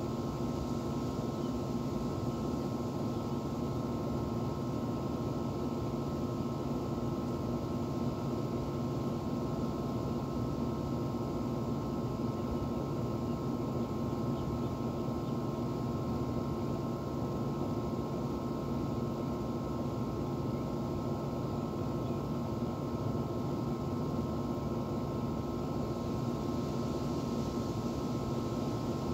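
Outdoor air-conditioner condenser unit running: a steady hum with several held tones over a constant fan rush.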